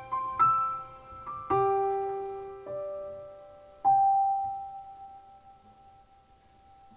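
Background piano music: slow, separate notes, the last one struck about four seconds in and left to ring and fade away.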